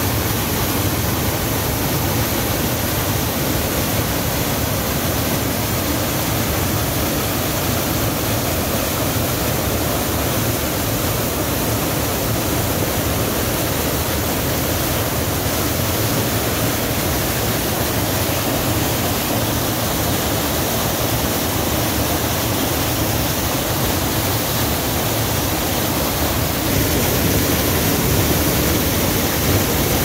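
Waterfall pouring onto rocks into a foaming plunge pool: a steady rush of falling and splashing water, a little louder for the last few seconds.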